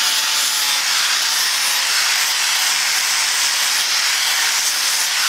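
Angle grinder fitted with a sanding pad, sanding a wooden knife handle: a loud, steady hiss.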